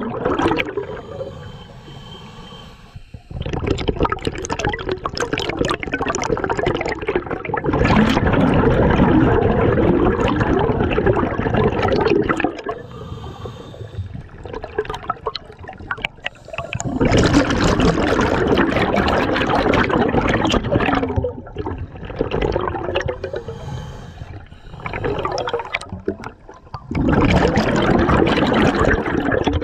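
Underwater breathing on a scuba regulator: loud bursts of exhaled bubbles, each several seconds long, alternating with quieter stretches between breaths.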